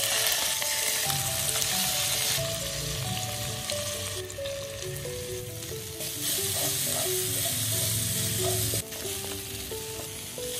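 Hot oil sizzling in a nonstick frying pan, first as raw chicken pieces fry, then as ground chili spice paste with bay leaves and lemongrass is sautéed and stirred with a wooden spatula. The sizzle jumps abruptly in level several times.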